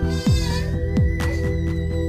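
Electronic background music: sustained synth tones over bass notes that drop in pitch every half second or so.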